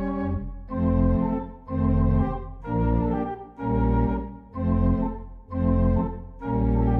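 Organ music: a run of held chords, each swelling and fading about once a second, starting shortly after a brief dip.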